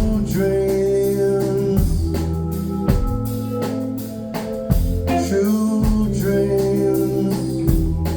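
Live band music: a steady drum beat with heavy bass hits under sustained chords.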